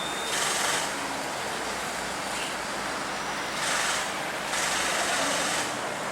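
City street noise: a steady rushing hiss with three louder swells, like vehicles passing on the road.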